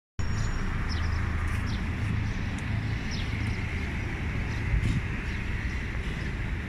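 City street ambience: a steady low rumble, with short high chirps scattered through it and a brief low bump about five seconds in.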